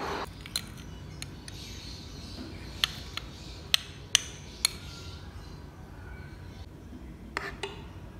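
Metal spoon clinking against a small glass bowl while beating egg yolks: scattered sharp clinks, several close together about three to four and a half seconds in, and two more near the end.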